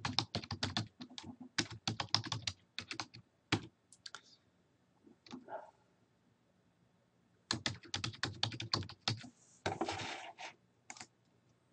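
Typing on a computer keyboard: a quick run of key clicks as an email address is typed, a pause of about three seconds, then a second run for the password.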